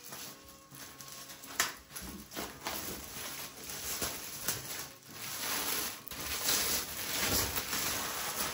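Protective plastic film being peeled and handled off a metal poster: irregular crackling and rustling, with a sharp click about one and a half seconds in.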